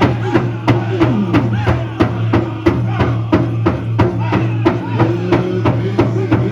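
Powwow drum group striking a large shared drum in a steady beat, about three strokes a second, with several voices singing in gliding unison over it.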